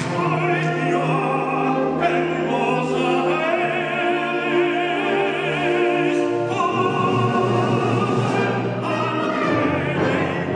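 A male soloist singing in operatic style with a wide vibrato, accompanied by a full concert band of brass, woodwinds and percussion.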